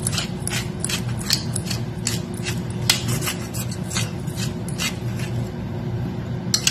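Hand-held pepper mill being twisted, grinding black peppercorns with a quick irregular run of small crunching clicks, several a second.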